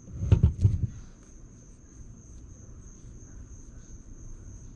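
A few dull knocks in the first second as the lowrider's hydraulic cylinder is handled while being worked loose, over a steady high-pitched tone.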